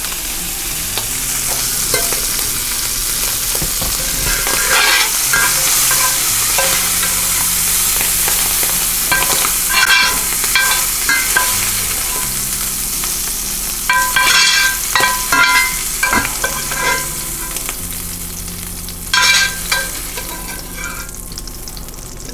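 Chicken hearts frying in butter in a hot pan, a steady sizzle. A utensil scrapes and clicks against the pan in short bursts about four times as the hearts are lifted out.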